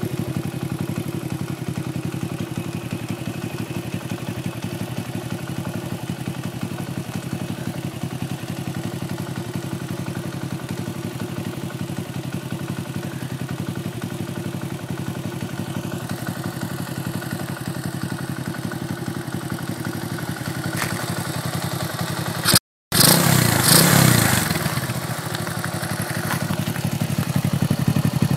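Honda Dax minibike's Lifan 125cc single-cylinder four-stroke engine, with tuning cam and double exhaust, idling steadily. About three-quarters of the way through the sound breaks off for a moment, then comes back louder and rougher.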